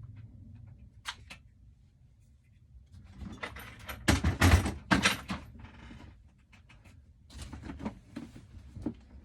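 Knocks, clicks and rattles of hard objects being handled, with a cluster of loud knocks about four to five seconds in.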